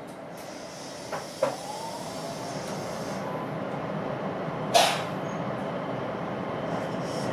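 JR West 227 series electric train pulling away from a station: a faint motor whine rising in pitch under the building rumble of wheels on the rails. There are two short clicks about a second in and one loud sharp knock near five seconds.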